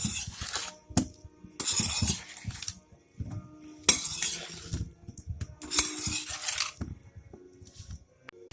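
Metal kitchen utensils clinking and scraping against metal cookware in a series of short strokes of about a second each, with a few sharp clinks between them.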